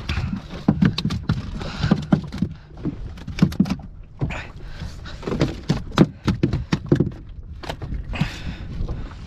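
A freshly caught fish flapping and slapping against a boat's deck in irregular knocks and thuds, mixed with the handling of a plastic fish-measuring mat.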